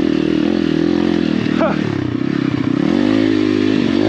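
Apollo RFZ 125cc pit bike's single-cylinder four-stroke engine running under load, its revs dropping about two seconds in and then rising again.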